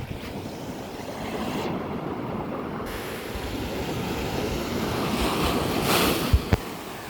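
Sea waves washing onto the shore, with wind buffeting the microphone. The surf swells to its loudest about six seconds in, followed by two brief low thumps.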